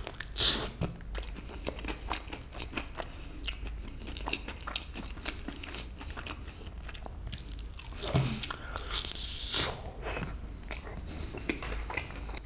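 Close-up eating sounds of sauce-glazed Korean chicken wings: biting and chewing with many small crunches. The louder bites come about half a second in and again around eight seconds in.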